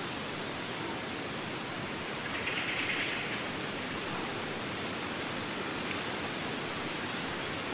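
Wind in tree leaves: a steady outdoor hiss and rustle, with a short high-pitched sound about two-thirds of the way through.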